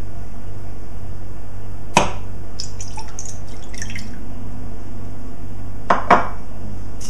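Water poured from a glass tumbler into a stainless-steel saucepan: a sharp clink just before a short splashing pour, then two more knocks near the end, over a steady low hum.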